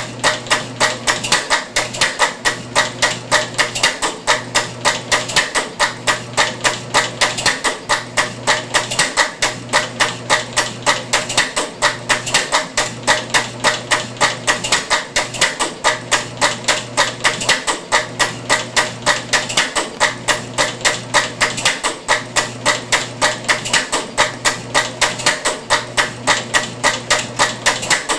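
Home-built one-valve four-stroke gasoline engine being turned over by belt, its valve gear clattering in an even rapid clicking about three times a second. The clicking comes from the single valve and the ratchet-driven four-lobe cam, a noisy valve operation. A low hum cuts in and out every second or two beneath it.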